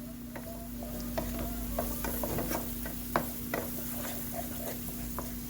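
Garlic and onion frying in butter and chicken fat in a pan, stirred with a utensil: irregular clicks and scrapes against the pan over a light sizzle, starting about a second in, with a steady low hum underneath.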